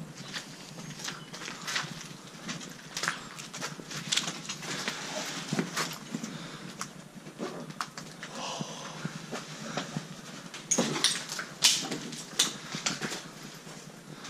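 Footsteps crunching and scuffing over rubble and debris, with scattered irregular clicks and cracks. The loudest is a cluster of sharp cracks about eleven to twelve seconds in.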